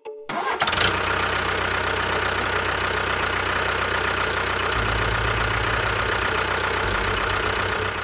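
An engine cuts in suddenly and runs steadily at a constant level. Its low hum shifts pitch about halfway through and again near the end.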